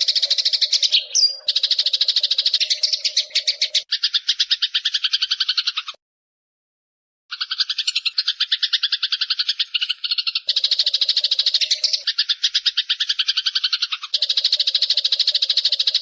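Eurasian tree sparrow chattering in a fast, unbroken run of chirps. The sound drops out completely for about a second just before the middle, and the chirp pattern changes a few times, as in an edited, looped recording.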